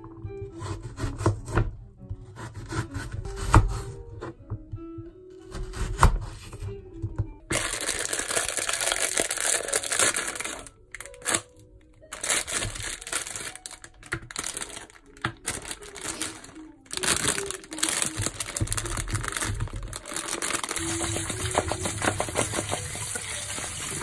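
A knife knocking on a plastic cutting board as an onion is cut, then a plastic bag of Brussels sprouts crinkling and tearing open from about 7 seconds in. Near the end, tap water runs onto the sprouts in a plastic colander in a steel sink. Background music plays throughout.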